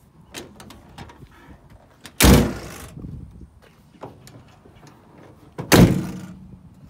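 The steel doors of a 1963 Chevrolet C10 panel truck are slammed shut twice, about three and a half seconds apart, each slam ringing briefly. Lighter clicks of the latch and handle come before each slam.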